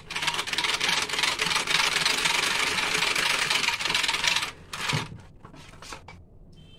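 Electric hand mixer running at speed, its beaters whisking a thin gram-flour and yogurt batter in a bowl, for about four seconds before it is switched off. A short knock follows about five seconds in.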